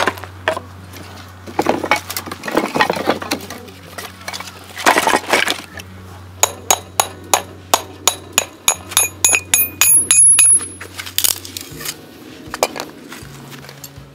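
Metal and glass clinks and clacks as a folding stainless-steel fire pit and its glass windscreen panels are set up, with scraping handling sounds and then a rapid run of sharp, ringing clinks between about six and eleven seconds in.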